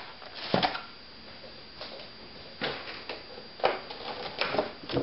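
Kitchen handling noise: a handful of separate light knocks and clicks, roughly one a second, as containers are set down and a plastic clamshell of spinach is picked up and carried.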